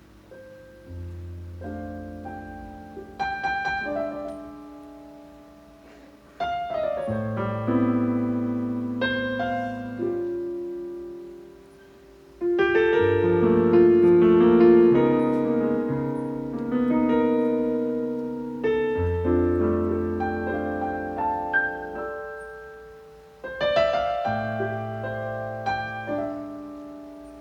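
Solo piano playing slow, sustained chords over low bass notes, in phrases that are struck and then left to ring and die away, with short pauses between them.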